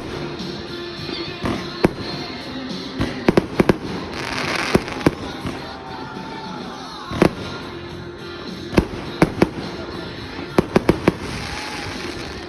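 Fireworks going off: sharp bangs of bursting shells in irregular clusters, with a swell of hissing crackle about four seconds in and again near the end.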